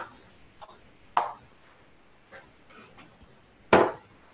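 A few sharp knocks and clunks of a trumpet and a metal mouthpiece puller being handled and set into a bench vise on a workbench, the loudest near the end.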